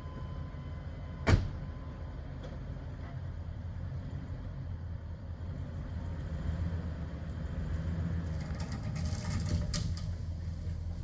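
Car running, heard from inside the cabin as a steady low rumble, with a sharp knock about a second in and a rising hiss with a click near the end.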